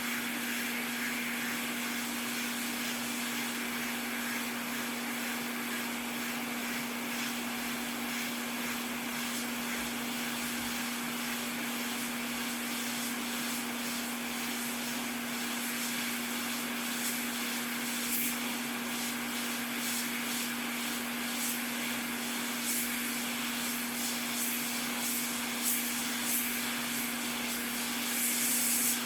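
Hot-air rework station blowing steadily, an even airy hiss with a constant low hum, as the solder around an Xbox Series X HDMI port is reflowed. A few faint ticks come near the end.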